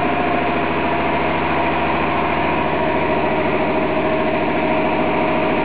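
Steady machine hum from an infrared plastic welding machine running, a constant drone with several fixed tones and no change in pitch or level.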